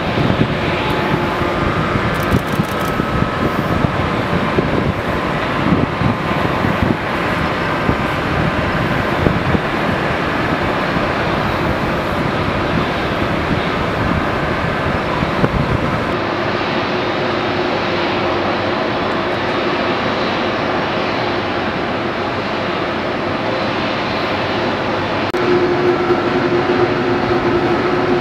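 Boeing 787-8 Dreamliner jet engines running at taxi power, a steady broad rushing noise. About halfway through the sound changes abruptly, losing its deepest rumble, and a steady hum comes in near the end.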